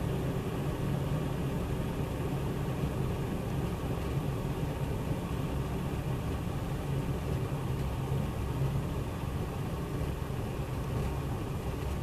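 DEFORT DEK-317-F glass electric kettle at a full rolling boil, water bubbling with a steady low rumble: the final "white key" stage of boiling.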